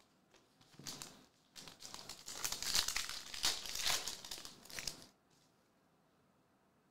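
Foil wrapper of a Revolution basketball trading-card pack crinkling and tearing as it is ripped open by hand. A short rustle comes about a second in, then the main crinkling lasts about three and a half seconds and stops about five seconds in.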